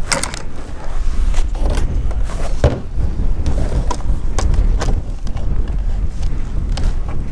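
Gutter being handled and pressed against a corrugated sheet-metal shed roof: scattered sharp clicks and knocks, about a dozen, over a steady low rumble. The cordless drill is not running.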